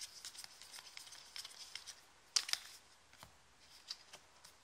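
Trading cards being handled by hand: soft rustling and sliding of card stock, broken by a few sharp little clicks, the loudest a pair about two and a half seconds in.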